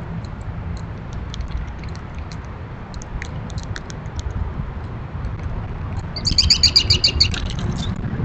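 Backyard birds calling: scattered short, high chips, then near the end a loud, rapid trill of fast repeated notes lasting about two seconds, over a steady low rumble.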